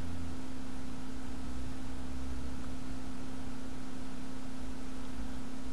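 Steady hiss with a constant low hum underneath; no distinct clicks or knocks.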